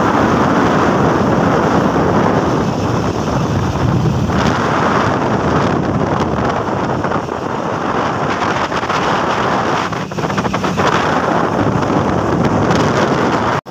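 Loud, steady wind rushing over the microphone of a phone carried on a moving motorbike, with the bike's road noise beneath it.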